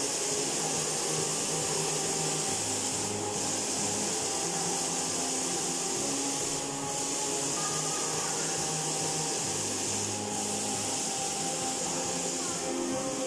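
Steady hiss of a water curtain pouring from a ring of ceiling nozzles into a round pool, with quiet music underneath.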